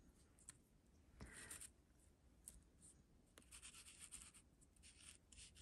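Faint, rapid scratchy strokes of Distress ink being rubbed through a stencil onto paper: a short spell about a second in, then a longer run from about three and a half seconds.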